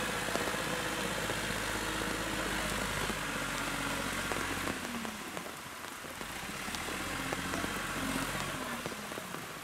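Diesel engine of a backhoe loader running under load as it lifts a bucket of earth, its pitch wavering and falling back about halfway through before picking up again. Steady rain hiss underneath.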